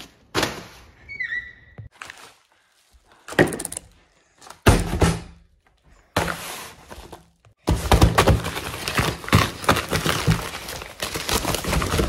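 Padded paper mailer being handled: a few thumps and short rustles, the heaviest about five seconds in, then from about eight seconds steady crinkling and rustling as the paper envelope is torn open.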